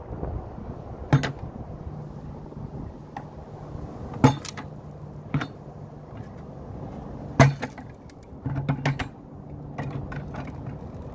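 A few sharp knocks and clicks, the loudest about four and seven seconds in, with a quick run of them late on, over a steady low hum.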